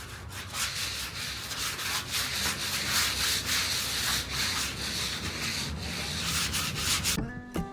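Sanding of a sailboat's fibreglass hull bottom, prepping it for antifouling paint: a dense, scratchy rasp that cuts off suddenly near the end, where guitar music comes in.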